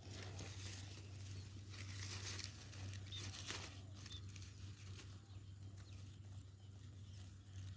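Irregular rustling and light crackling of grass and vegetation being pushed aside and handled, over a steady low hum.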